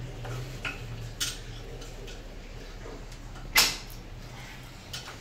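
Shampoo-station basin being handled and shifted on its chair base: a few light clicks and knocks, the loudest a sharp knock about three and a half seconds in, over a steady low hum.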